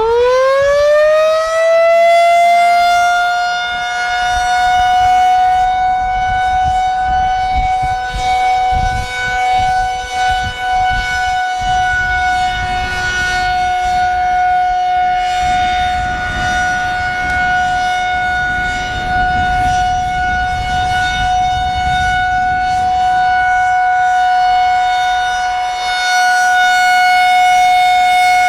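Federal Signal 2001-130 electromechanical warning siren winding up: its pitch rises quickly over the first few seconds, then holds a steady alert tone. The loudness swells and dips slowly as the rotating siren head turns.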